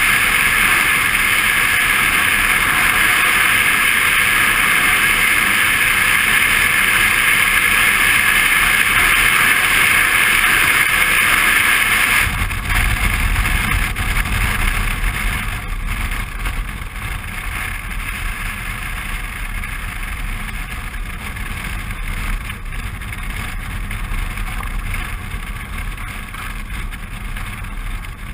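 Suzuki V-Strom 650 V-twin motorcycle riding along a road, with wind rushing over the camera microphone. About twelve seconds in, the wind hiss drops off suddenly and the low engine rumble comes forward.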